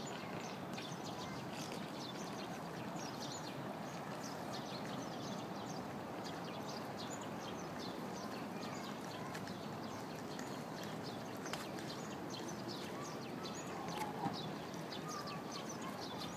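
Steady outdoor background noise with many short, high bird chirps scattered throughout, and a couple of brief knocks near the end.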